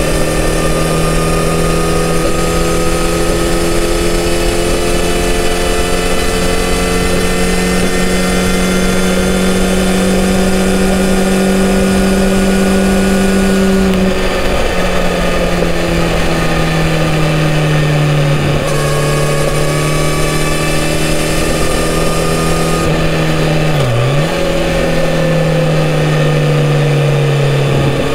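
Kawasaki Z900RS inline-four engine through its stock exhaust, running at a steady cruise. The engine note holds level at first, then eases gradually lower through the second half, with one brief dip in revs and recovery near the end.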